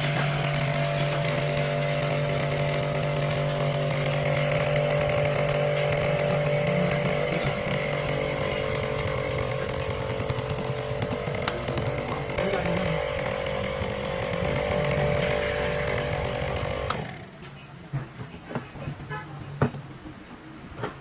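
A workshop power tool running steadily for about seventeen seconds, then cutting off suddenly, followed by a few light clicks and knocks.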